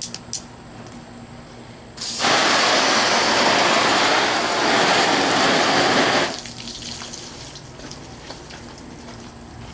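Garden-hose spray nozzle blasting water onto a Tyvek tarp: a loud, steady hiss of spray that starts suddenly about two seconds in, runs about four seconds and cuts off, leaving faint drips.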